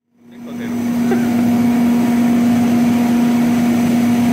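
Cable production line machinery running, with a steady mechanical hum and a constant low tone that fades in over the first second.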